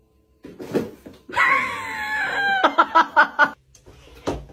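A person screaming: one high-pitched cry about a second and a half long, falling slightly in pitch, followed by a quick run of short cries.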